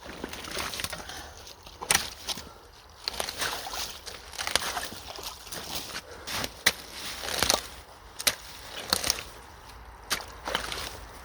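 Sticks and roots cracking and snapping while debris is worked loose from a clogged culvert, with water sloshing around. The sharp cracks come irregularly, a few of them loud.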